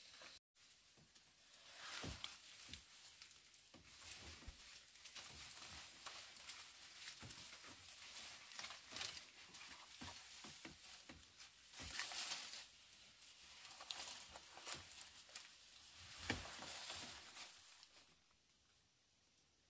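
Faint rustling and crackling with many small scattered clicks and a few louder knocks, dying away near the end.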